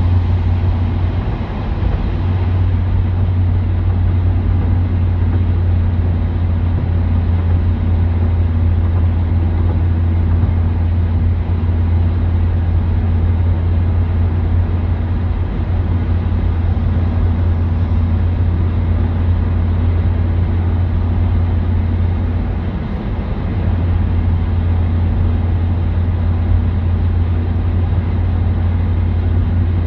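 Steady low drone of road and engine noise from a vehicle driving at speed, heard from inside the cabin.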